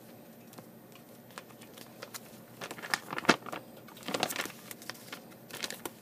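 Quiet scattered clicks and crinkling rustles, coming in a denser cluster through the middle and a few more near the end.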